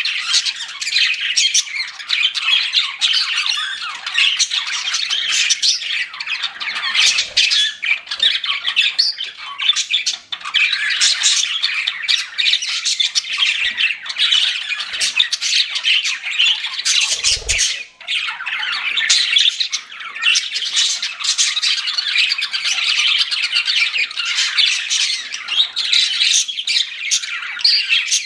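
A group of budgerigars chattering and chirping without a break, many quick overlapping calls at once.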